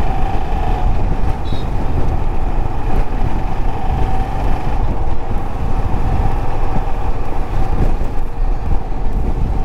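Royal Enfield Himalayan motorcycle under way on the road: a steady mix of engine and road noise, with a constant hum held at one pitch.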